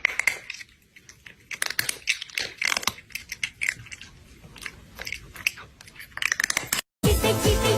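Chewing on something crunchy: irregular crisp crunches and bites. Music starts abruptly near the end.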